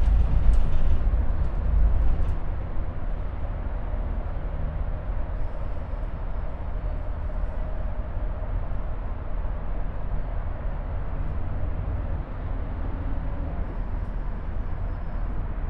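Steady low rumble inside a moving aerial tramway cabin riding its cables, with a few knocks and rattles in the first couple of seconds.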